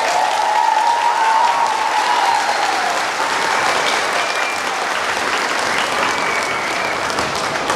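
Audience applauding steadily, with a drawn-out cheer from the crowd over the first two seconds and a few short whistles later.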